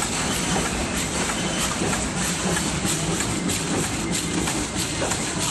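Automatic packaging machine running: a steady mechanical hum and hiss with frequent, irregular clicks and clacks from its moving parts.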